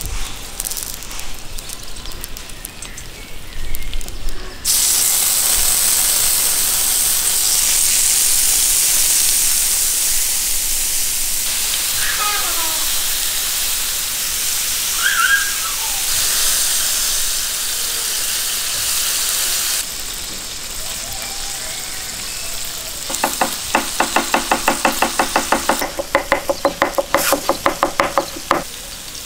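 Halved kidneys and fat sizzling on a hot round griddle, starting about five seconds in with a loud steady hiss that dies down near the twenty-second mark. Then a chef's knife chops garlic on a wooden cutting board in a quick run of strokes that slows toward the end.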